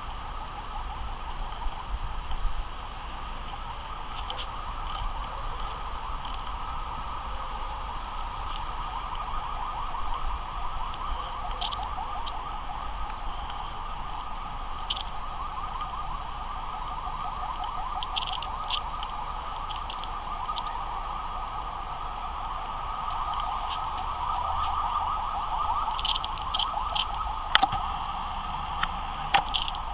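A steady, fast-pulsing drone at a middle pitch runs throughout, with scattered sharp clicks, some in quick groups of two or three.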